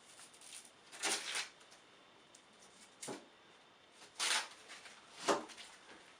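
Packing being handled on a countertop ice maker: four short rustling, scraping bursts, about a second or so apart, as tape and packaging are pulled off the plastic unit.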